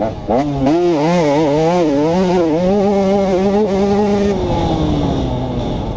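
2011 KTM 150 XC's two-stroke engine running hard under the rider, its pitch wavering up and down as the throttle is worked, then falling away from about four and a half seconds in as the rider rolls off.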